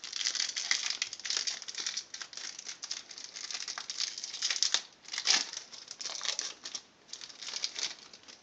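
Foil trading-card booster pack wrapper crinkling as it is pulled open and the cards are drawn out. It crackles all the way through, with a louder burst about five seconds in.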